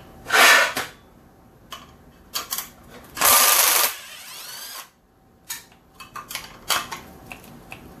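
Milwaukee Fuel cordless impact backing out quarter-inch bolts from an aluminium sprint car wheel, run in two longer bursts with a falling whine as the motor spins down after each, plus several short trigger blips. The tool is struggling on a low battery.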